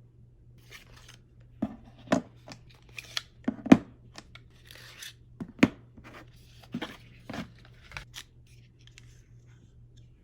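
Packaging being handled and opened: rustling and tearing noises with a dozen or so irregular sharp clicks and taps, the loudest a little under four seconds in.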